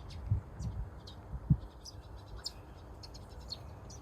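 Small birds giving short, high chirps scattered through a steady outdoor rumble, with a few dull low thumps in the first second and a half, the loudest about a second and a half in.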